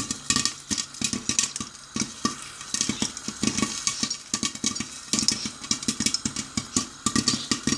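Popcorn kernels popping rapidly in a lidded cooking pot: a dense, irregular run of sharp pops and knocks, several a second, over a faint low hum.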